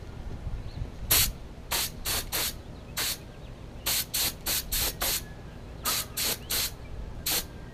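Paint spray gun firing about fourteen short hissing bursts, some single and some in quick runs of two to five, as small parts are given a coat of gloss black acrylic enamel.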